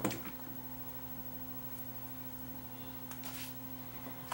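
A small DC motor dropped on the workbench gives one short knock right at the start. After that there is only a low steady electrical hum, with faint handling rustles about three seconds in.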